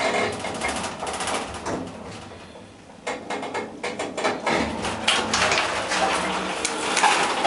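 Russian-made passenger elevator car slowing and coming to a stop at its floor. About three seconds in, a run of clicks and clatter starts as the car doors open.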